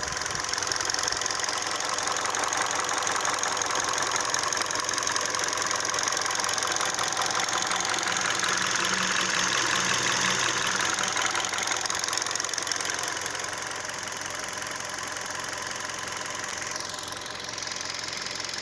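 Hyundai Solaris 1.6 four-cylinder petrol engine running fully warmed up, with a fast, steady knocking over the engine note. The owner takes the knock for piston slap.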